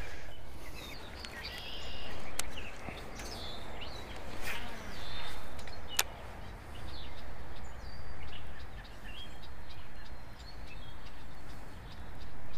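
Outdoor ambience with faint bird chirps over a low rumbling noise that swells and fades every second or two, and a single sharp click about six seconds in.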